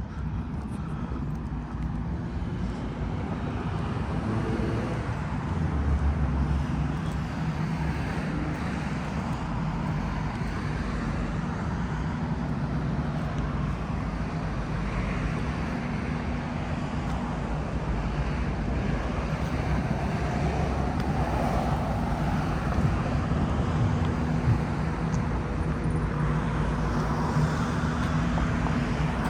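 City street traffic: a steady wash of road noise with the low hum of vehicle engines.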